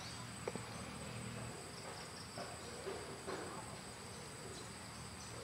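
Faint, steady high-pitched drone of insects, such as crickets, calling outdoors.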